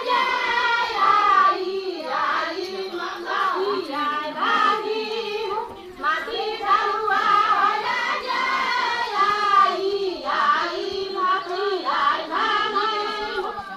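High-pitched voices singing a song with long held, bending notes.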